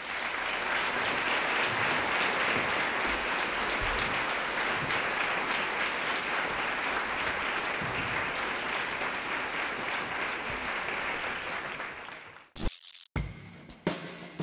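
Audience applauding, a steady dense clapping that fades and cuts off about twelve seconds in. Music with drums starts near the end.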